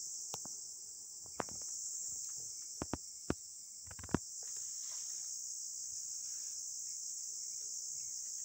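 Steady, high-pitched drone of insects calling, with a few sharp clicks and taps in the first half.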